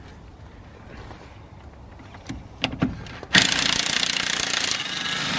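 Cordless impact wrench hammering on the top nut of a front anti-roll bar drop link, undoing it. A few light metal clicks come first as the socket goes on, then the wrench starts about three seconds in and hammers rapidly to the end, a little quieter near the end.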